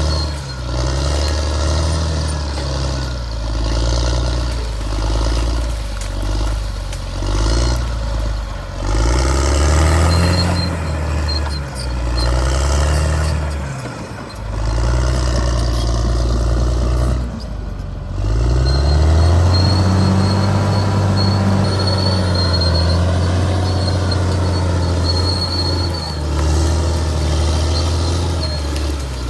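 Caterpillar D6R bulldozer's diesel engine working under load, its pitch rising and falling as the throttle and load change, held highest for several seconds in the second half. A faint thin high whine comes and goes over it.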